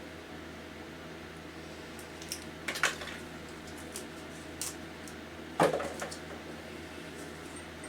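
Fan heater running with a steady hum, overlaid by a few scattered knocks and clatters of objects being handled. The loudest knock comes about five and a half seconds in.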